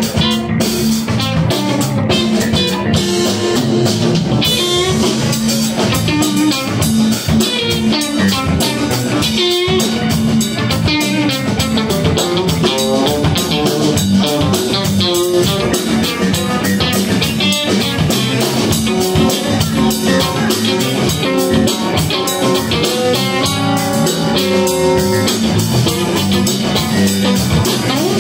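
Live band of electric guitar, electric bass and drum kit playing an instrumental passage with a steady drum beat.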